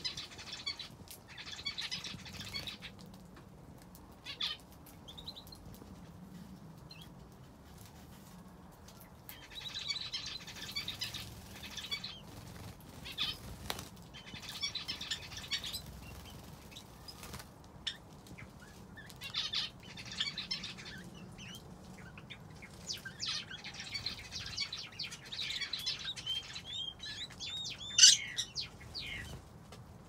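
Canaries and other small aviary finches chirping and twittering in bursts of a few seconds, with quieter gaps between them and now and then a flutter of wings. One sharp, loud call stands out near the end.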